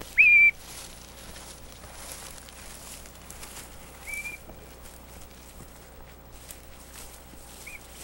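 Short, steady, high blasts on a dog-training whistle: a loud one at the start, a fainter one about four seconds in and a brief faint one near the end.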